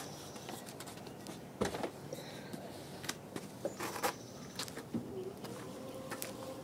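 Scattered knocks and clunks of luggage being pushed into an SUV's cargo area, loudest about a second and a half in and again about four seconds in. Near the end a steady motor hum starts: the power tailgate beginning to close.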